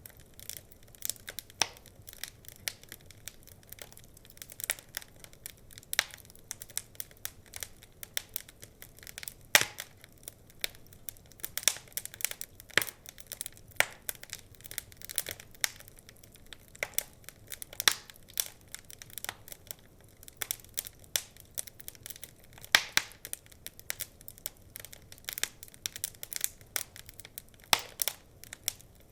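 Wood fire crackling: irregular sharp pops and snaps over a faint hiss, the loudest pops about ten seconds in and again near twenty-three seconds.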